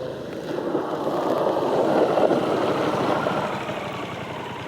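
Adventure motorcycle braking hard on dirt, its locked rear tyre skidding and scrubbing over the ground. The noise swells about two seconds in and then eases off as the bike comes to a stop.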